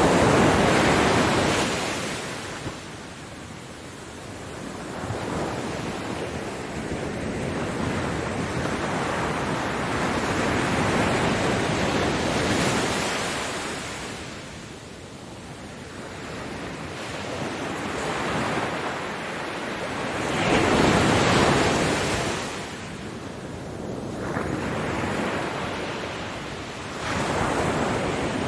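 Ocean waves breaking on a beach, the surf swelling and fading in slow surges several seconds apart.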